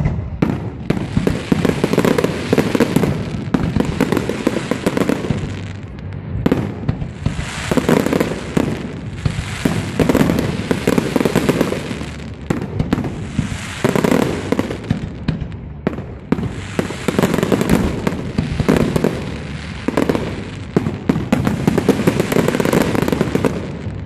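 Fireworks display: a dense barrage of bangs and crackling that swells and fades in waves every few seconds.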